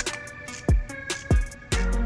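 Background hip-hop style music: a steady beat of deep kick-drum hits with sustained synth tones.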